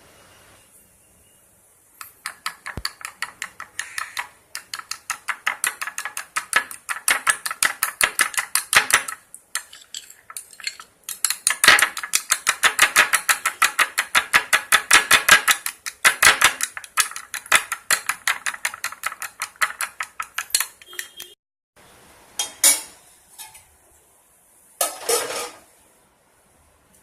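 Spoon clattering rapidly against a bowl, beating eggs for egg kalakki: fast, even clicks in long runs, with a short pause about nine seconds in. The clicks stop about twenty-one seconds in, followed by a couple of separate knocks.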